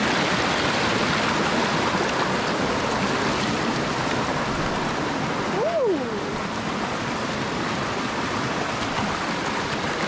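Shallow mountain creek rushing and splashing over rocks, a steady, close-up rush of water.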